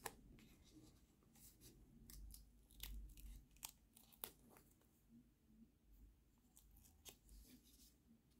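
Near silence with faint, scattered ticks and rustles of a paper sticker being worked off its sheet with metal tweezers.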